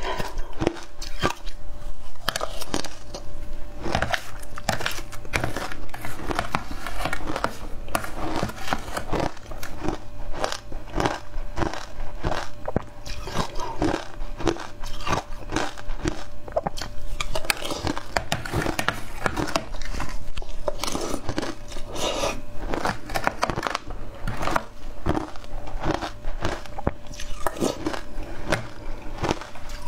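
Shaved ice coated in matcha and milk powder being bitten and chewed close to the microphones: a dense, irregular run of crisp crunches and crackles that never lets up.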